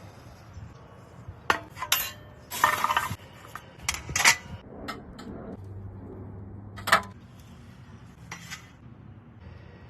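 Metal kitchen utensils and cookware clinking and clanking in a string of irregular sharp knocks and short scrapes, with a brief clatter about two and a half seconds in.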